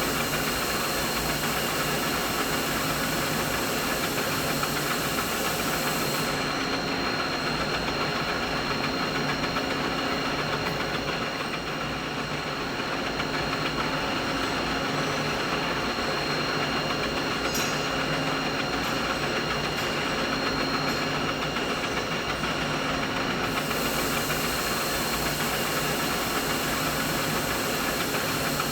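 Steady mid-frequency machine hum: continuous mechanical noise with several steady tones over a low hum, at an even level. A high hissing layer drops away about six seconds in and comes back near the end.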